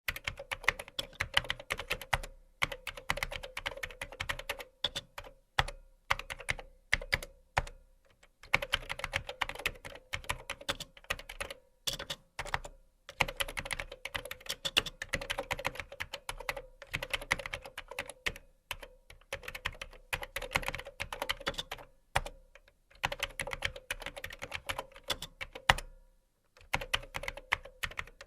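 Typing on a computer keyboard: fast runs of key clicks with short pauses every few seconds, a few keystrokes louder than the rest.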